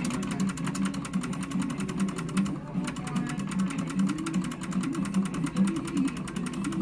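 Pennsylvania Skill slot-style game machine playing its bonus-spin sounds: rapid even clicking, about ten a second, over a low electronic tune, with a brief break about two and a half seconds in.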